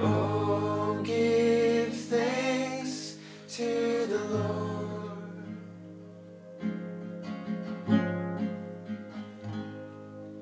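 Worship song on strummed acoustic guitar, with a voice singing over it for the first few seconds. The guitar then carries on alone, growing quieter.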